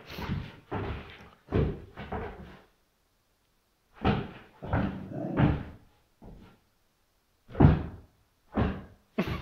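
Pit bull puppy barking at its reflection in a mirror: about ten short barks in clusters, with pauses of a second or more between groups.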